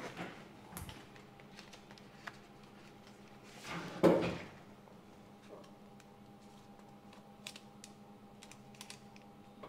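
Light clicks and taps of a plastic polariser film and hand tools being handled on a TV panel, with one louder rustling knock about four seconds in. A faint steady hum sits underneath.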